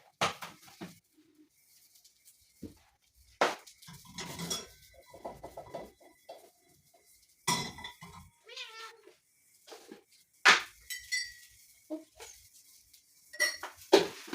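A kitten meowing a few times, with sharp clinks and knocks of pots and utensils in between.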